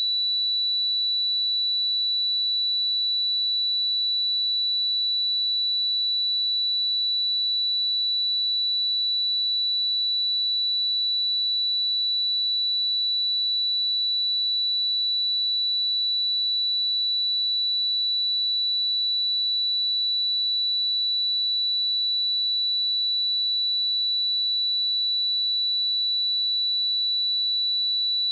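A pure 3951 Hz sine-wave test tone, at the pitch of the note B7, held steady at one unchanging level. It is a speaker and headphone test signal.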